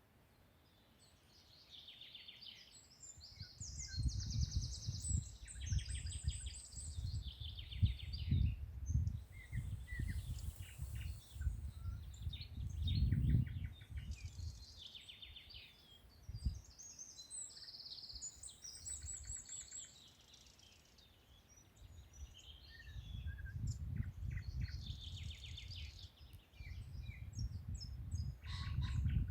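Several songbirds singing in a forest: overlapping high trills and quick runs of repeated chirps. A low, gusting rumble comes and goes beneath them, strongest in the first half and again near the end.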